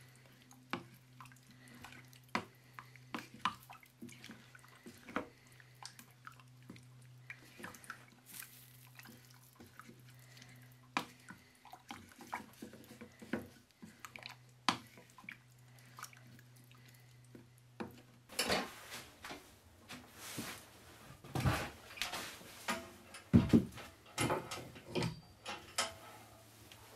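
A wooden spoon stirring thick chicken stew in a stainless steel pot: soft wet squelches and light taps against the pot over a low steady hum. About two-thirds of the way through this gives way to louder knocks and clatter as a bent metal rod is worked at the wood stove.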